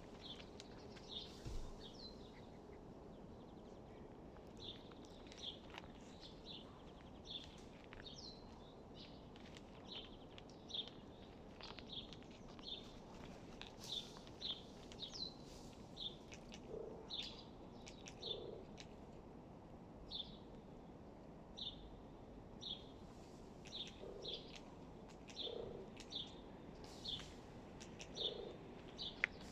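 Hooded crow making odd, soft low calls, heard five times in the second half, against a steady run of short, high bird chirps about once a second.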